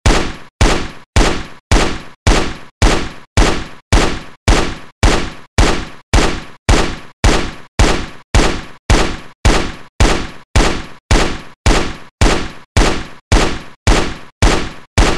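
Galil rifle gunshots, fired as single shots about two per second in an even, repeating pattern. Each shot has a sharp crack with a short decaying tail and a smaller second report just after it.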